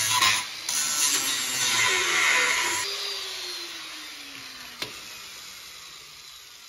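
Handheld power grinder grinding a metal conduit lock nut, then released about three seconds in, its disc spinning down with a falling whine that fades away. A single sharp click near the end.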